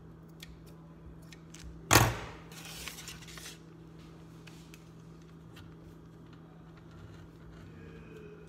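A sharp clatter of a utensil knocked or set down on a kitchen counter about two seconds in, followed by a second or so of rustling. Faint small clicks and crinkles follow as a plastic piping bag of icing is handled and squeezed, over a low steady hum.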